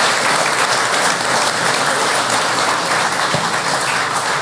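Audience applauding: many hands clapping in a dense, steady stream.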